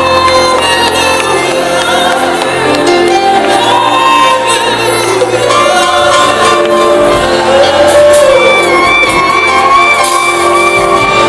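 Live Christian band playing loud: several singers over the band, with a trombone and saxophone in the line-up and shouts from the crowd.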